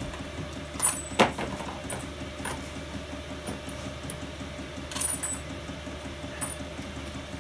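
Loose bolts and small metal engine parts clinking and clanking as a hand sorts through them in a cardboard box. A sharp clank comes about a second in and is the loudest, and a few more follow, over a steady background hum.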